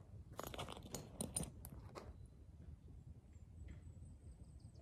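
A burst of crunching and rustling close to the microphone for about two seconds, from movement and handling right by it. After that only a faint, thin, high steady tone is left.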